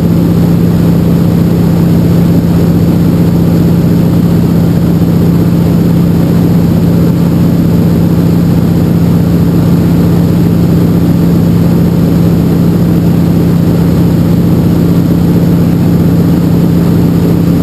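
De Havilland Canada DHC-2 Beaver's Pratt & Whitney R-985 radial engine and propeller running with a loud, steady drone, heard from inside the cockpit.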